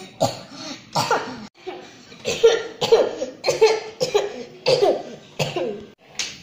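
A person coughing repeatedly: a run of short, sharp coughs about half a second apart, some with a voiced, throaty edge, with a brief lull about one and a half seconds in.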